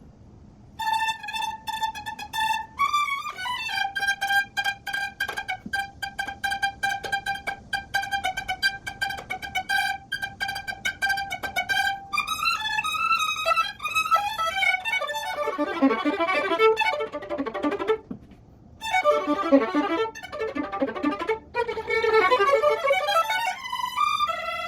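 Solo violin playing. About a second in it settles on one note, repeated in many quick bow strokes for some ten seconds, then moves into runs of changing notes, broken by a few brief pauses.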